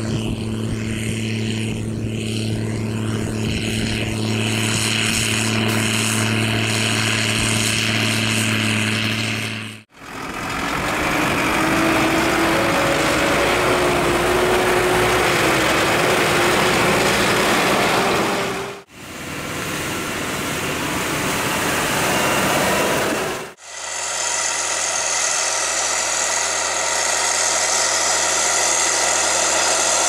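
Diesel engines of farm tractors (a New Holland and a Zetor) running steadily under load as they pull manure spreaders. The sound changes abruptly three times as one tractor gives way to another.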